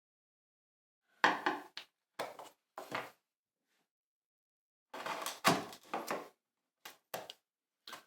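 Hand tools working wood: irregular short knocks and scrapes in small groups, from refining the recess cut out for a knot patch in a bench top.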